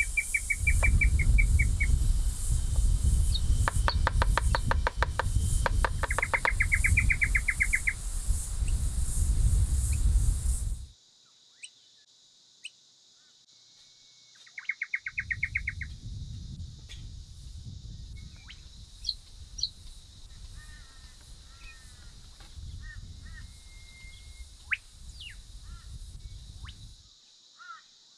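Open-air ambience: wind rumbling on the microphone, which drops out about a third of the way in and returns a few seconds later, with small birds chirping and trilling over a steady high insect buzz.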